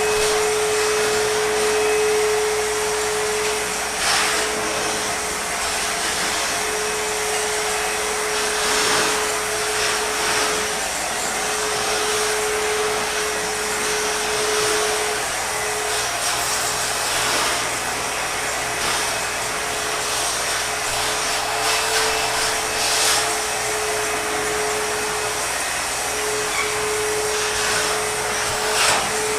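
ProTeam backpack vacuum running steadily, a constant motor whine over the rush of suction, with the air noise surging briefly several times as the wand moves.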